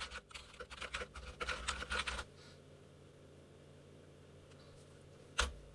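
Typing on a computer keyboard: a quick run of keystrokes for about two seconds, then quiet, then a single sharp click near the end.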